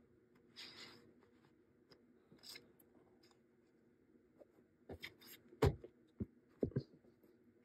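A deck of tarot cards handled on a tabletop: a soft rustle of the cards about half a second in, then a quick run of about six knocks from about five seconds in as the deck is tapped upright against the table, the loudest near the middle of the run.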